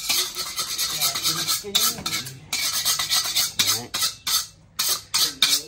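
Metal utensil scraping and clattering against cookware in a run of short strokes, stopping and starting every second or so.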